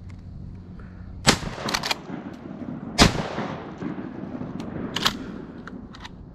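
Shotgun fired at wood ducks in flight: sharp reports, the two loudest about one and three seconds in, the second trailing off in a fading echo, with a weaker crack about five seconds in.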